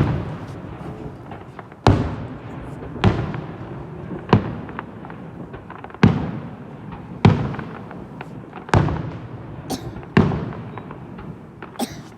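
Fireworks bursting: about eight loud bangs, roughly one every one and a half seconds. Each is followed by a rolling echo that dies away, with a few smaller pops in between.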